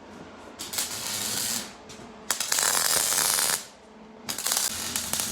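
Electric arc welding crackling and sputtering in three bursts of about a second each, with short pauses between them, as a weld bead is laid.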